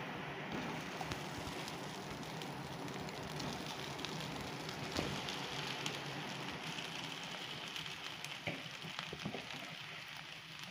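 Onion and spice masala frying in oil in a pan, a steady sizzle, with a few light knocks of a utensil about halfway and near the end.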